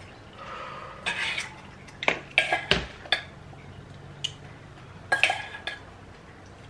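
A metal spoon clinking and scraping in a stainless steel bowl as food is served, with a few irregular clatters of dishes.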